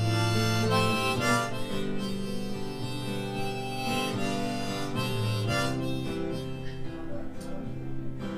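Harmonica playing a melody over guitar accompaniment: the instrumental break between verses of a live folk song.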